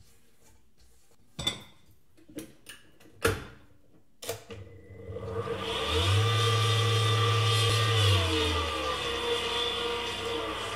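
A spatula knocks against a steel mixing bowl a few times. About five seconds in, an electric stand mixer beating chocolate buttercream with its wire whisk starts up, its motor speeding up with a rising whine and running steadily, then easing to a lower speed near the end.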